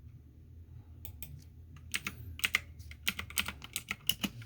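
Typing on a computer keyboard: a quick run of keystrokes that starts about a second in and gets busier toward the end.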